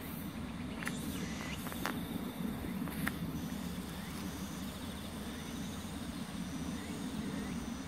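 Quiet outdoor ambience: a steady low rumble with faint insects chirring, and a few soft clicks in the first three seconds.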